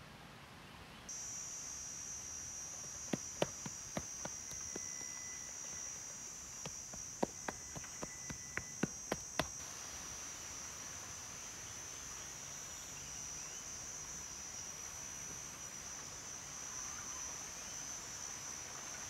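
A steady high insect drone that starts abruptly about a second in. Between about 3 and 9 seconds in, about a dozen sharp taps or knocks.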